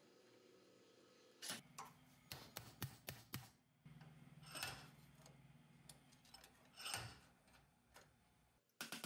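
Faint scattered clicks and taps of small objects being handled, several in the first half and a few later. A low hum sets in about four seconds in and stops shortly before the end.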